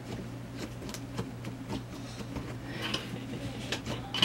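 Butter slime being kneaded and squished by hand, giving faint, irregular little sticky clicks and pops, with a slightly louder one near the end. A steady low hum runs underneath.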